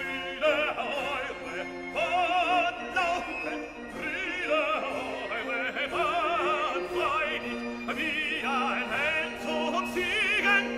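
Operatic music: a classically trained voice singing with wide vibrato over held accompanying notes.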